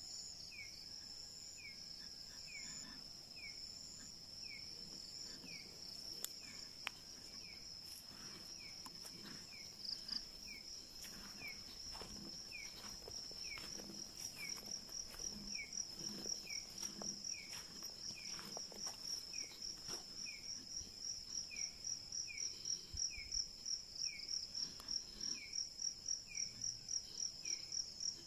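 Night insect chorus: a steady high trill that grows louder and breaks into rapid pulses, about three or four a second, in the second half. A short falling chirp from another caller repeats about once a second, with scattered faint clicks and rustles midway.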